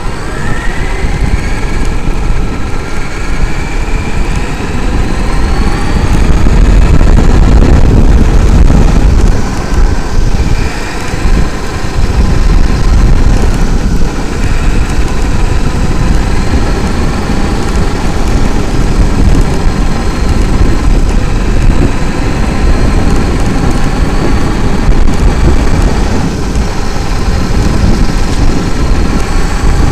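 Traxxas X-Maxx electric RC monster truck heard from its own onboard camera: the brushless motor whines, rising in pitch as the truck speeds up over the first few seconds, over a heavy rumble of tyres running on gravel.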